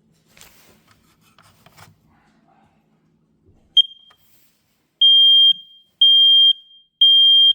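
Fire alarm being tested: a short high chirp about four seconds in, then a loud high-pitched beep sounding three times, about half a second each, in the three-beep evacuation pattern.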